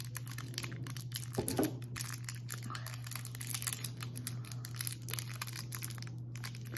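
Crinkling of a clear plastic snack wrapper being handled and worked open, in a dense run of small irregular crackles.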